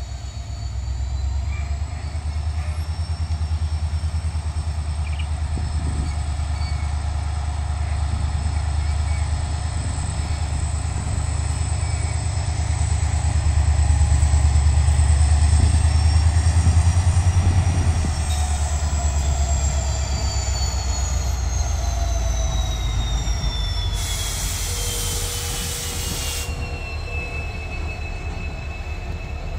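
Indian Railways diesel locomotive passing close by, its engine a heavy low rumble that is loudest about halfway through. A high whine drops steadily in pitch as the locomotive goes by. Near the end comes a hiss lasting a couple of seconds.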